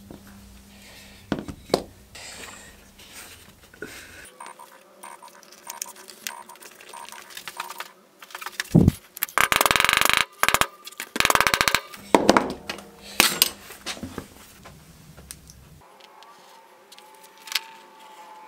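Hammer striking a metal setting tool on leather: sharp metallic taps, with two quick flurries of rapid taps about halfway through that are the loudest part, and lighter taps near the end.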